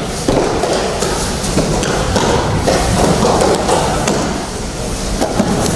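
Thuds and slaps of aikido break-falls on foam mats, with the shuffling of many people training at once. Sharp knocks are scattered through a steady noise.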